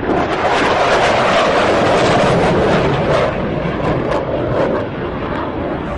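Fighter jet making a fast low pass: a loud jet roar comes in suddenly, holds for about three seconds, then eases off with some crackle as the jet moves away.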